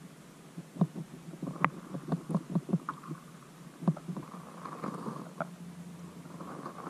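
Muffled, irregular knocks and low rumbling heard through a waterproof action-camera housing underwater, as a fishing line tugs at a snagged branch near the camera. A faint hiss comes in about halfway.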